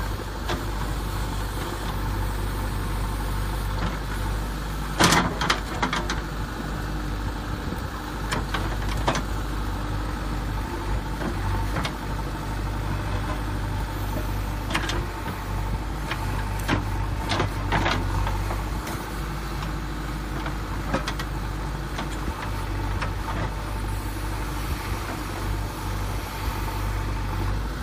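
A steady low engine-like drone, with scattered short clicks and knocks, the loudest about five seconds in.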